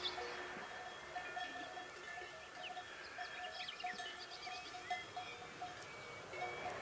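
Livestock bells clanking and ringing on and off, several bells at different pitches, as grazing animals move.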